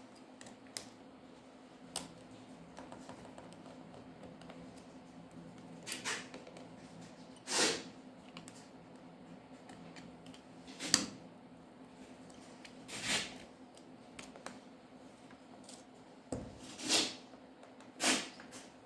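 Scattered small clicks and short scrapes of hand tools and small parts during phone disassembly, about eight in all, a few of them longer scratching sounds, over a faint steady hum.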